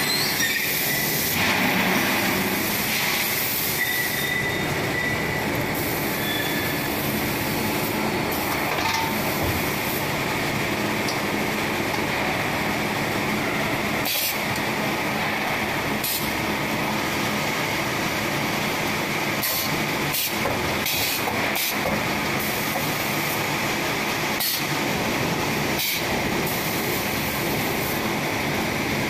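EVA shoe-sole injection moulding machine running: a loud, steady mechanical din with a constant high whine, broken now and then by short sharp clicks or hisses.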